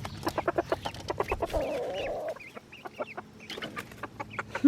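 Chickens clucking in a quick run of short notes, with one longer drawn-out call about a second and a half in.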